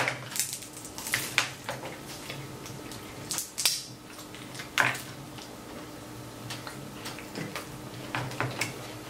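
Close-up eating sounds: a fork clicking and scraping on snow crab shell and plate, with wet chewing and smacking, in irregular sharp clicks and short bursts.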